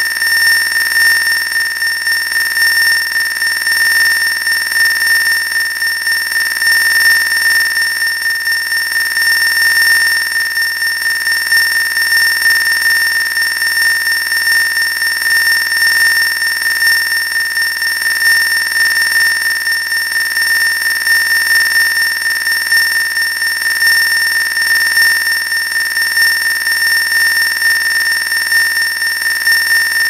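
Computer-generated steady electronic tones, several high pitches held together without a break, like an alarm tone, with a light rapid waver in loudness. Each tone comes from one of the animated squares, and its volume and left-right position follow that square as it moves.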